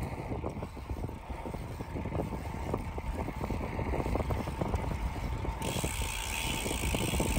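Riding noise from a road bicycle on asphalt: a steady low rumble of wind buffeting the microphone and tyres on the road, with scattered crackles. A brighter hiss joins about two-thirds of the way through.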